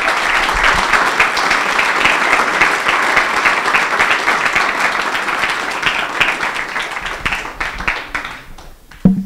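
Audience applause: many people clapping together, thinning out and dying away near the end. Just before the end there is a brief low thump.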